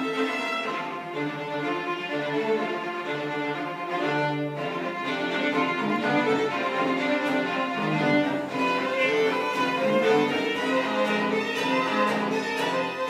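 Live string quartet (two violins, viola and cello) playing a bowed passage with several lines moving at once.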